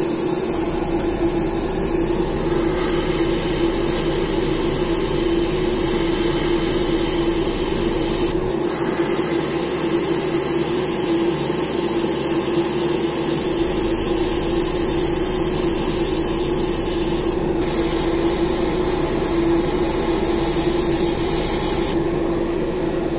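Airbrush spraying paint onto a jerkbait: a steady hiss of air over a constant motor hum.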